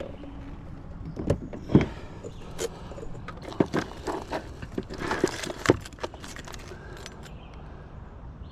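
Fishing gear being handled: a scattering of sharp clicks, knocks and rattles, thickest between about one and six seconds in.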